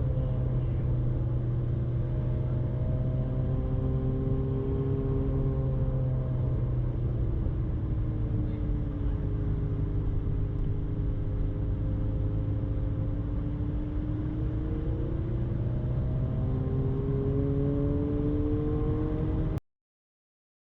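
Ferrari 458 Spider's V8 running through a Brilliant aftermarket exhaust while driving, its note rising and falling gently over a steady low drone. The sound cuts off abruptly about a second before the end.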